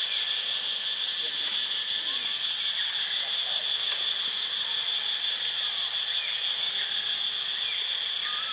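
Steady high-pitched insect drone, with a few faint short chirps scattered through it.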